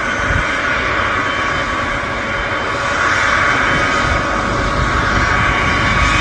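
Boeing C-17A Globemaster III's four Pratt & Whitney F117 turbofans running as it taxis: a loud, steady jet rush with a high engine whine. It swells a little about three seconds in.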